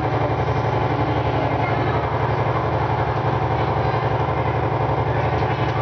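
Recorded boat-engine idling sound played by a pilot-house exhibit after its engine button is switched on: a steady low rumble with a fast, even throb.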